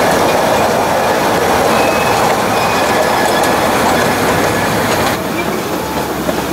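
A 15-inch gauge ride-on train running, heard from a passenger car: a steady rumble and rattle of the wheels on the track, with a faint thin wheel squeal at times on the curve. About five seconds in the sound drops somewhat lower.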